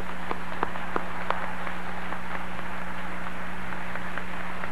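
Audience applauding: many hands clapping, a few sharp claps standing out near the start, over a steady low electrical hum.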